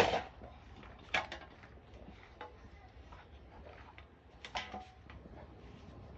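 Toys being handled, knocking and clattering three times: a loud knock at the very start, another about a second in, and a third about four and a half seconds in, with faint rustling between.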